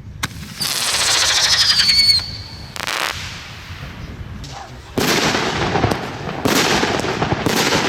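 Consumer fireworks going off. There is a whistle falling slightly in pitch over fast crackling for about a second and a half, then a single sharp bang about three seconds in, then a run of bangs and crackling bursts from about five seconds on.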